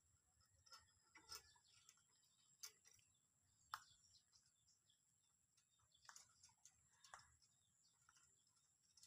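Near silence with a few faint, sharp metal clicks, as a bolt and washer are handled and pressed against a stainless steel rear rack on a scooter.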